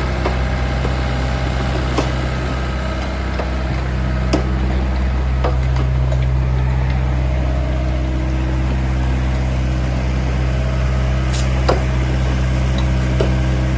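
Daewoo Solar 55-V Plus mini excavator's diesel engine running steadily as the machine turns on its steel tracks, with a few sharp clanks.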